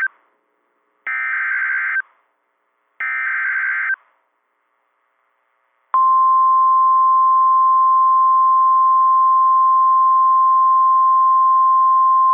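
NOAA Weather Radio Emergency Alert System signal ahead of a new severe thunderstorm warning. First come two roughly one-second bursts of warbling SAME digital header data, a second apart. Then, after about two seconds of silence, the steady 1050 Hz warning alarm tone starts about six seconds in and holds loud and unbroken.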